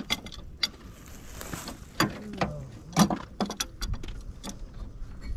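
Irregular sharp metallic clinks and clicks of a wrench worked on the crankshaft pulley bolt of a 1970 VW Beetle's air-cooled flat-four. The engine is seized and the bolt barely moves.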